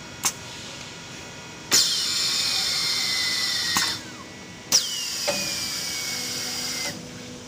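JT-SLT-900 thermal paper slitter rewinder: a click, then two bursts of hissing with a high whine, each about two seconds long. Each whine drops quickly in pitch and then holds steady, and each burst stops with a click.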